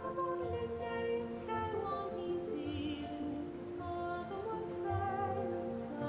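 Slow, gentle background music of long held notes that step and glide from one pitch to the next.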